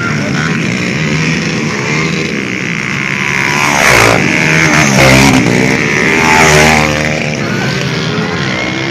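Several motocross bikes' engines revving as they race past, their pitch rising and falling, with louder close passes about four and five seconds in and again a little later.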